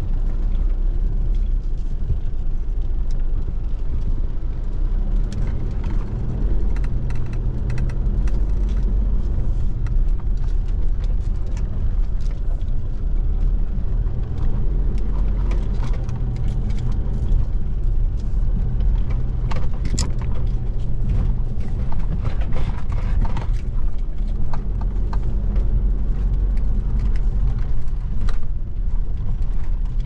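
4x4 vehicle driving on a rough off-road track: steady low engine and road rumble, with scattered knocks and rattles, the sharpest about twenty seconds in.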